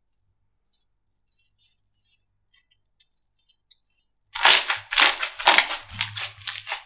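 Slime being squeezed and pressed by hand: loud, repeated squishing and crackling sounds, two or three a second, starting about four seconds in after near silence with one faint click.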